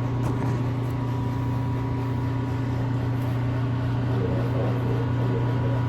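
Steady low hum of a car's engine and cabin noise heard from inside the car.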